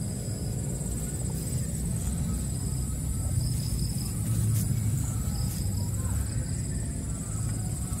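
Crickets chirping in a steady, high-pitched trill, over a continuous low rumble.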